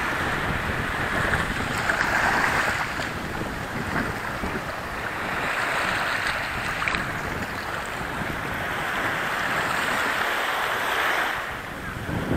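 Small waves washing up a sandy beach, the wash swelling and falling back every few seconds, with wind buffeting the microphone.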